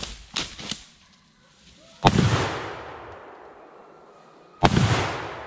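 Two shotgun shots about two and a half seconds apart, each followed by a long rolling echo that dies away.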